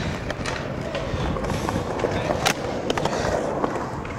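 Skateboard wheels rolling on pavement in a steady rumble, with scattered sharp clicks and knocks; the loudest comes about two and a half seconds in.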